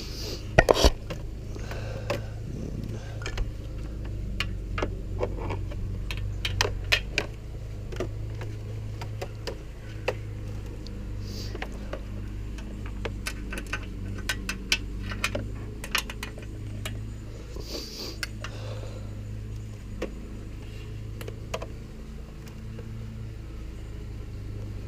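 Irregular small clicks, taps and rattles of hands routing a USB port's wiring and handling plastic parts on a motorcycle, over a steady low hum. The loudest knocks come about a second in.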